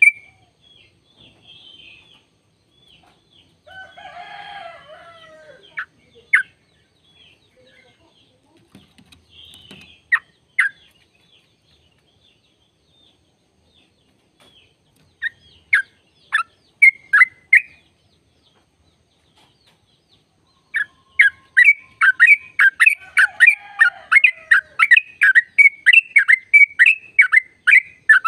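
Yellow-vented bulbul singing. Scattered bright, falling chirps come first, with a brief harsher call about four seconds in. Near the end comes a long rapid run of repeated notes, about three to four a second: the rolling 'ropel' phrase.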